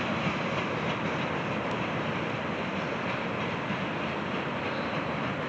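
Freight train of coal hopper cars rolling slowly along the track: a steady noise of wheels on the rails that eases slightly as the cars draw away.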